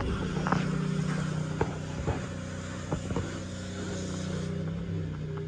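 A 1990 GMC Topkick pumper fire truck's engine idling steadily, with a few faint clicks over it.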